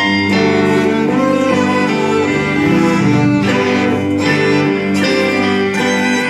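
Live band music led by a string section: violins and a cello bowing sustained chords, with electric guitars and keyboard underneath.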